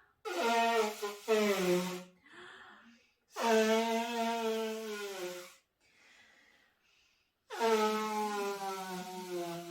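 A woman's honks. Two short honks come back to back, then one steady honk of about two seconds, then another starts near the end, with faint breaths in between.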